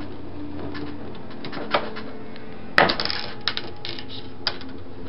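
Parts of an RCA SFT-100 CED videodisc player handled during disassembly: a few clicks and one sharp clatter about three seconds in, over a steady low hum.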